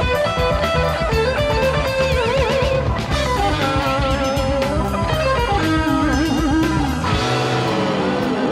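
SELDER Stratocaster-style electric guitar playing a rock lead, its held notes wavering in pitch with tremolo-arm vibrato about two seconds in and again around six seconds, then dipping down in pitch near the end. Bass notes and regular drum ticks play underneath.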